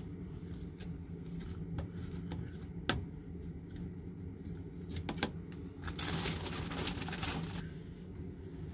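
Handling noises: a few light clicks and knocks, the sharpest about three seconds in and a quick pair around five seconds, then about a second and a half of rustling, over a steady low hum.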